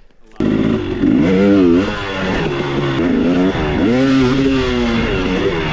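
Dirt bike engine running while being ridden on a trail; the engine note rises and falls repeatedly as the throttle is worked. It starts abruptly about half a second in.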